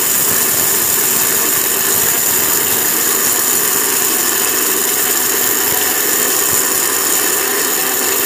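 Zunvolt 750 W mixer grinder running steadily at its low speed setting, its motor whining as it grinds dry dal in the steel jar.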